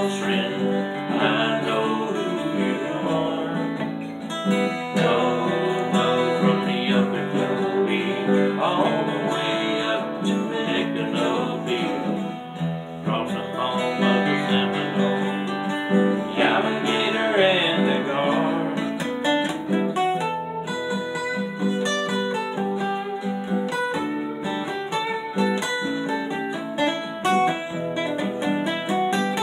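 Two acoustic-electric guitars playing a country song together, strummed chords under a picked melody line. From about twenty seconds in, quick single picked notes come to the fore.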